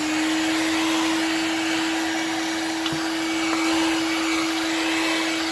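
Electric heat gun running at full speed: a steady motor whine over the rush of blown hot air. It is switched off at the very end and its pitch drops as the motor winds down.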